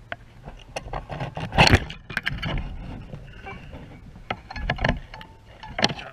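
Irregular clicks, knocks and rattles of rod and reel being worked against a kayak while fighting a fish, with one loud knock about one and a half seconds in, over wind buffeting the microphone.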